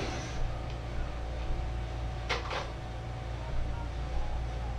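Steady low hum of a small room, with a few faint knocks and a brief rustle about two and a half seconds in as objects are handled.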